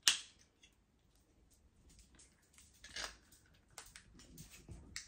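Quiet handling noises: a sharp click at the very start, a short rustle about three seconds in, then a cluster of small clicks and soft rustles with a dull thump near the end.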